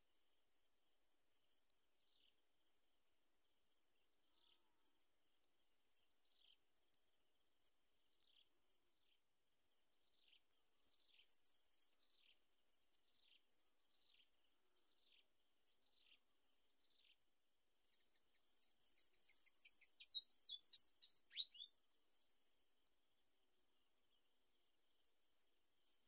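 Faint insect and bird sounds: a steady high, thin insect buzz, a run of short, evenly spaced falling whistled notes, and a brief burst of louder high chirps about twenty seconds in.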